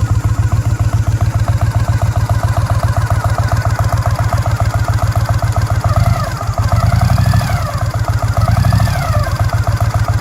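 Vehicle engine running with a fast, even thumping pulse; from about six seconds in the pitch rises and falls a few times as the engine is revved. The thumping is an unexplained noise, most distinct at the front of the vehicle.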